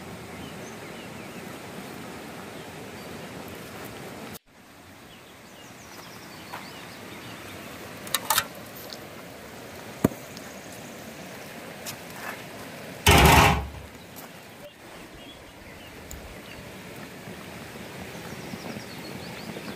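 Steady rushing of a river flowing beside the fire, with a few small clicks and one loud thump about two-thirds of the way through as the steamer pot is handled.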